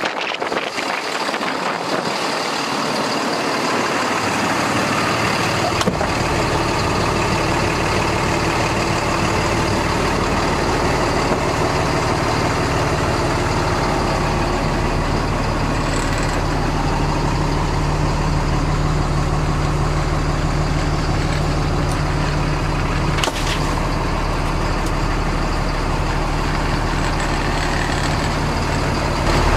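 Cummins 6.7L ISB inline-six diesel of a 2012 Ford F750 idling steadily, heard from inside the cab. The low idle comes up about four seconds in.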